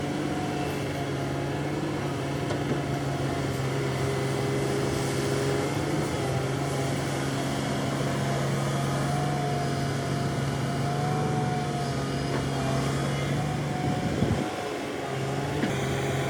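Construction machine motors running steadily, a constant hum with a few slight shifts in pitch, dipping briefly for about a second near the end.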